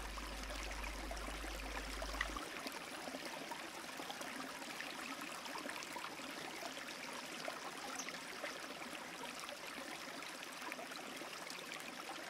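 Faint, steady hiss like running water, dotted with tiny crackles, with a low hum underneath that stops about two seconds in.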